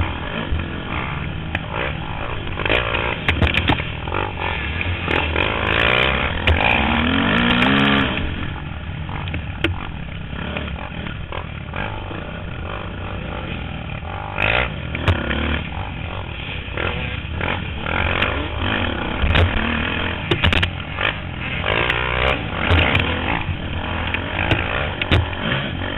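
Dirt bike engine heard from the rider's helmet camera, revving up and down as it is ridden hard along a rough woods trail. Scattered knocks and rattles come from the bike hitting bumps.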